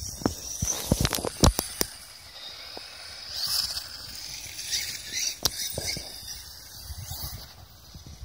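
Brushless RC monster truck driving hard over rough grass, its motor whining up and down with the throttle. A run of sharp knocks and clicks comes about a second in, and another knock later.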